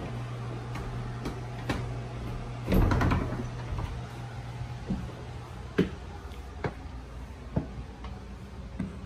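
Footsteps climbing a narrow wooden staircase, single knocks a little under a second apart, after a loud brief clatter about three seconds in. A steady low hum stops partway through.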